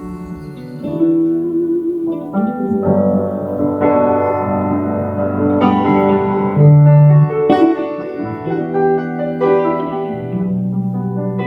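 Piano playing a slow instrumental passage of held chords between the sung verses of a ballad, with a louder low bass note about two-thirds of the way through.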